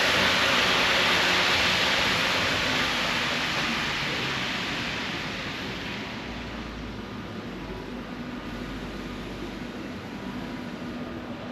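Rushing noise of a passing vehicle, loudest at the start and fading away over about six seconds, leaving a low steady hum.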